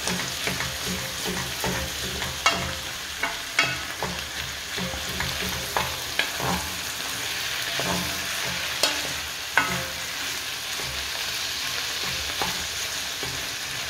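Minced meat and diced red onion sizzling in a pot with a steady hiss, while a wooden spoon stirs them and now and then scrapes or knocks sharply against the pot.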